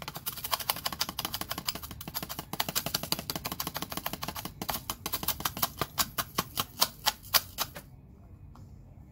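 Rapid tapping on a plastic funnel seated in a motorcycle battery's fill hole, knocking Epsom salt down into the cell. The taps come quickly at first, then spread out and grow louder before stopping about 8 seconds in.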